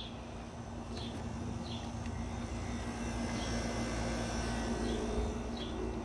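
Outdoor central air-conditioner condenser running: a steady hum over a low fan rumble, growing a little louder toward the middle. A bird chirps repeatedly, a short high note about once a second.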